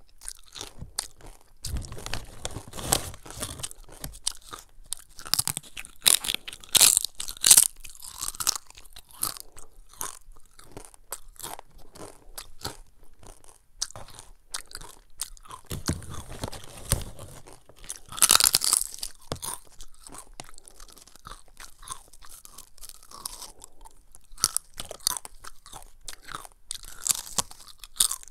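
Close-up crunching and chewing of crisp cassava chips: sharp cracking bites in clusters, the loudest a little before the middle and again about two-thirds of the way through, with quieter chewing between.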